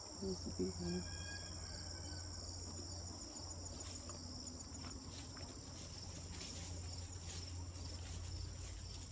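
Insects trilling steadily at a high pitch, with a low steady hum underneath.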